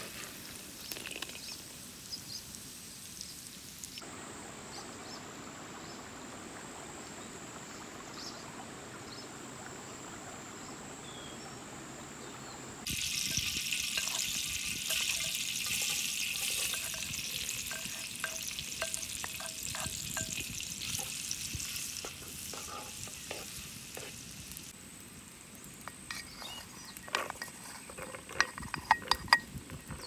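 Butter sizzling as it melts in a hot black steel wok, a loud steady hiss through the middle. Wooden spatula scraping and tapping against the wok, first scooping out fried chicken pieces and, near the end, stirring chopped onion.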